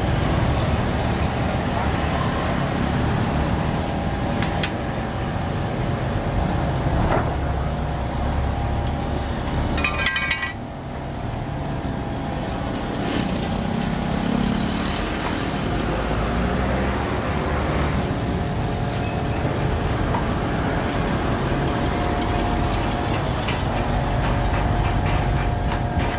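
Street ambience: a steady rumble of motor traffic and engine noise, dipping briefly about ten seconds in.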